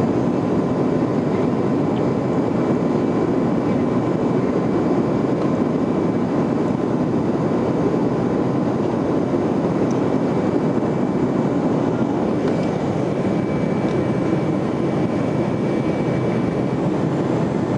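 Boeing 737-200 cabin noise in flight: the steady roar of its Pratt & Whitney JT8D turbofan engines and airflow heard from a seat over the wing, with a faint steady high whine over it.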